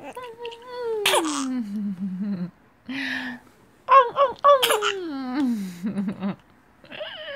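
A four-month-old baby babbling in long squealing calls that slide down in pitch, with breathy gasps between them and a quick run of short laughing sounds about four seconds in.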